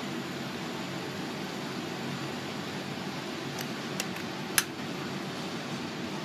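Steady rushing hiss of wood gas jetting from a hole in a sawdust-filled can heated over a fire, burning as a flame at the hole. About three and a half seconds in come a few sharp clicks, the last the loudest, as a lighter relights the jet after it has blown out.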